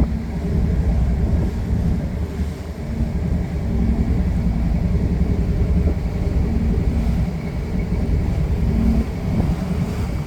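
Cruise boat's engine running under way: a steady low rumble with a faint hum above it.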